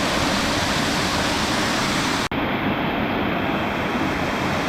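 Steady rush of water. A sharp edit cut a little over two seconds in briefly drops the sound, and the hiss is duller after it.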